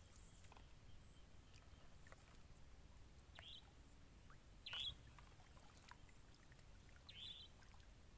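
Near silence broken by a small bird's short high chirp, heard about three times, the loudest about five seconds in.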